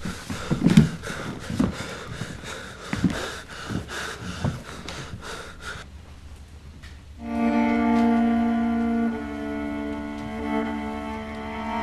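Irregular knocks and thuds for the first few seconds, then after a short lull a cello comes in about seven seconds in, playing long sustained bowed notes.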